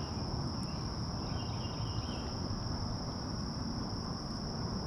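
Steady high-pitched insect drone, typical of crickets, over a low rumbling noise, with a short pulsing trill about a second and a half in.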